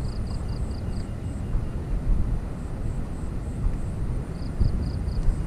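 Wind buffeting the microphone in a steady low rumble, with a short run of about five high chirps near the start and again near the end.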